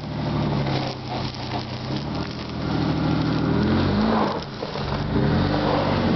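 Dodge pickup truck's engine running under load as it drags a boat on a tow strap. The engine revs up and down about four seconds in and climbs again near the end as the truck works for traction.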